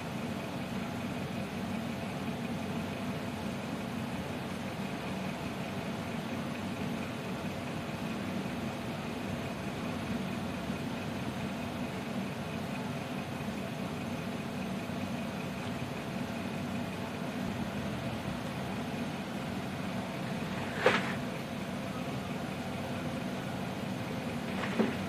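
Steady hum of a small motor, with two short sharp taps near the end, about four seconds apart.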